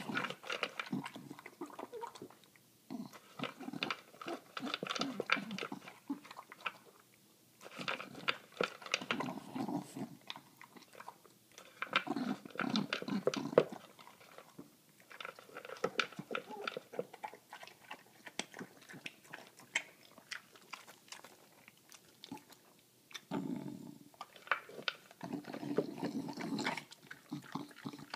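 English bulldog crunching and chewing dry kibble from a plastic bowl. It goes in bouts of rapid crunches with short pauses between.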